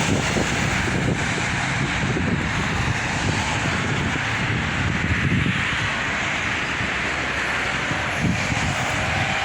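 Strong wind buffeting the microphone: a steady rush with an uneven, gusty low rumble.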